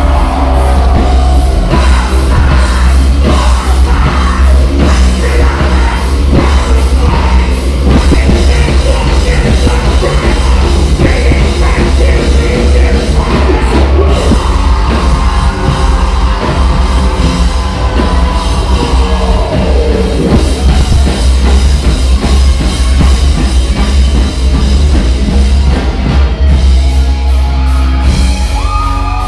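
Heavy metal band playing live at full volume: heavy bass, distorted guitars and pounding drums, with sung and yelled vocals over the top.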